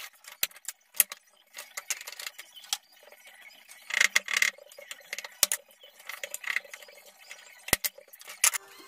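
Chisel work on a wooden board held in a bench vise: scattered light clicks and taps, a couple of short scraping cuts about four seconds in, and one sharp knock near the end.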